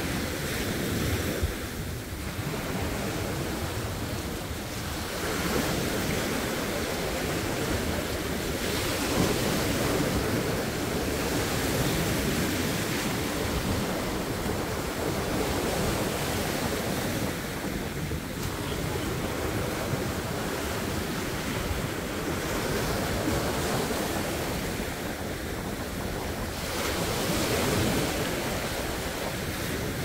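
Sea waves breaking and washing ashore in continuous surf, swelling and easing every several seconds.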